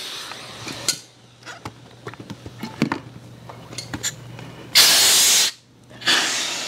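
Air hissing out of the valves of an Advanced Elements AE1044 inflatable kayak as it is deflated: a fading hiss at first, then a few clicks and knocks of handling, then a short, loud rush of air about five seconds in that cuts off sharply, and another hiss that fades away near the end.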